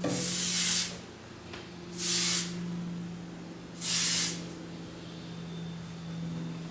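Aerosol hairspray sprayed in three short hissing bursts about two seconds apart, the first the longest.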